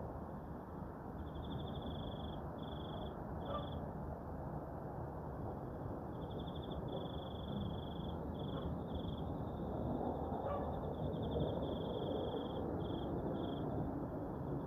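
An insect, cricket-like, chirping in repeated high pulsed trills about a second long with short gaps. Underneath is a steady low noise.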